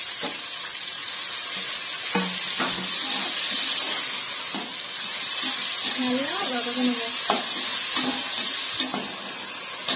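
Tomatoes, green chillies and onions sizzling in oil and ghee in a pressure cooker pot while being stirred and sautéed with a metal slotted ladle. The sizzle is a steady hiss, and the ladle clicks and scrapes against the pot every second or so.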